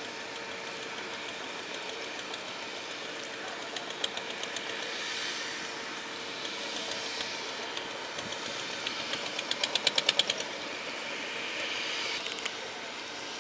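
Spinning fishing reel giving off two runs of rapid clicks, a short one about four seconds in and a longer, louder one around nine to ten seconds, over a steady outdoor hiss with a faint low hum.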